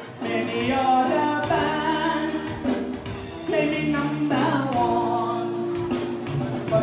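Live soca band playing, with a lead singer holding and bending notes over guitar and a steady beat.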